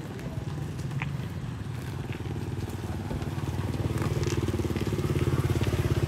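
Motorbike engine running close by with a steady rapid pulse, growing louder over the last few seconds.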